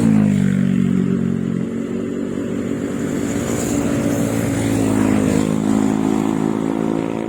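Road traffic passing close by: one engine's pitch drops sharply as it goes past at the start, followed by more engines running steadily.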